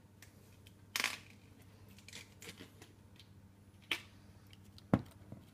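Small plastic and glass test-kit items being handled on a plastic tray: a few light clicks and knocks, about a second in, near four seconds and, loudest, about five seconds in, with smaller ticks between.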